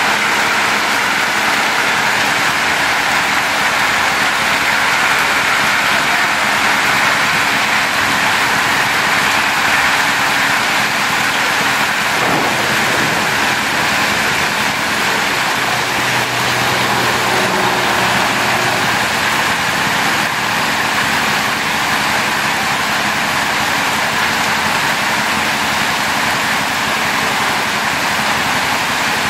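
Heavy rain mixed with hail pouring down onto a paved road, a steady dense hiss of falling drops and pellets.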